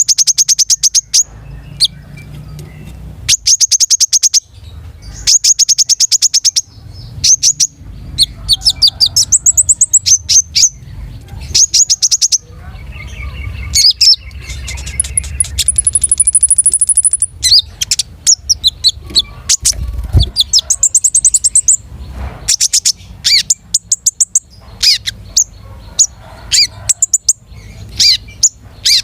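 A konin songbird singing loudly and vigorously: repeated phrases of fast, high, rapid-fire notes like trills, mixed with short whistled chirps and a few upward-gliding notes, with brief pauses between phrases.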